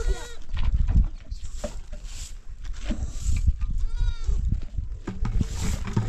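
A goat bleats, with one clear rising-and-falling call about four seconds in and a shorter call at the start. Underneath are crunching footsteps on loose stony ground and a heavy low rumble on the microphone.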